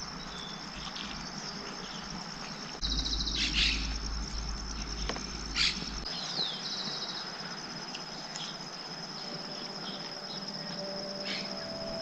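Insects trilling steadily with a high continuous buzz, with a few short bird chirps. From about three to six seconds in, a low rumble with a few clicks.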